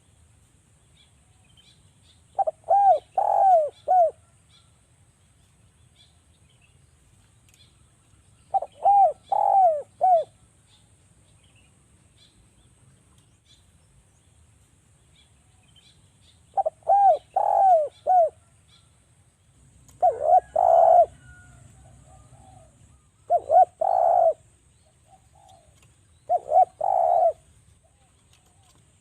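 Spotted dove (derkuku) cooing in short phrases of three or four notes, with a phrase about every seven seconds. From about two-thirds of the way through, the coos come as shorter, rougher groups about every three seconds.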